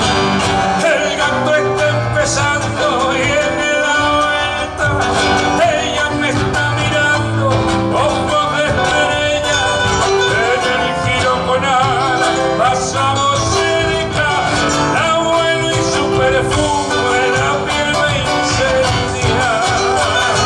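Live Argentine Cuyo folk music: acoustic guitars strumming and picking the rhythm of a gato.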